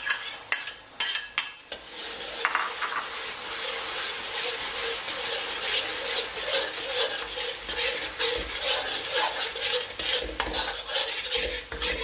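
Beaten eggs sizzling in a hot wok as a metal spatula stirs and scrapes them around the pan. From about four seconds in, quick repeated scrapes of the spatula against the wok run over the steady sizzle.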